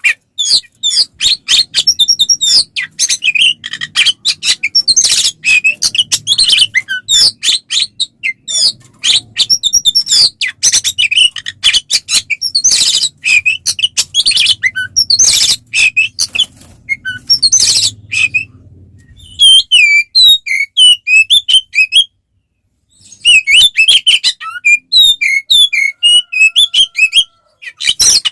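Oriental magpie-robin singing a loud, fast, varied song of whistles and chirps almost without pause, in the full-voiced, fighting-mode singing that keepers use to provoke other magpie-robins. The song breaks off for about a second three-quarters of the way through, and a faint low hum lies under the first two-thirds.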